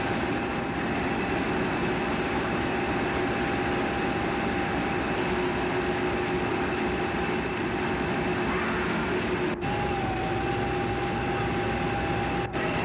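British Rail Class 50 diesel locomotive running, its English Electric V16 engine giving a steady drone with a high whine held on top; the sound drops out briefly twice near the end.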